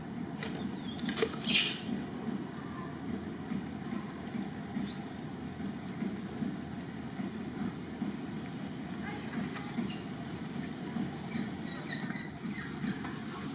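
Short high-pitched squeaks that rise and fall, several times, typical of monkeys calling, over a steady low rumble. There is a loud brief rustle about a second and a half in.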